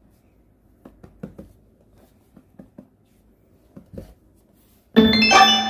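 A hand patting a paper tissue laid on an absorbent dog pee pad: a few soft, muffled pats in small groups. About five seconds in, a loud, bright jingle of music cuts in.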